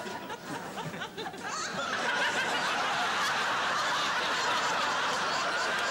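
Studio audience laughing, swelling to full, sustained laughter about two seconds in.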